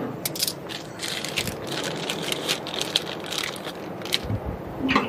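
Irregular plastic clicking and rattling of small pneumatic push-in air fittings being handled and sorted by a gloved hand, with a low thud about four seconds in.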